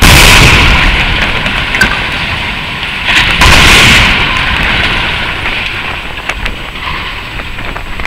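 Explosive demolition of steel colliery headstocks: a blast followed by a loud, deep rumbling collapse, with a second loud blast about three seconds in. The rumbling then slowly fades, with scattered cracks and clatters of falling debris.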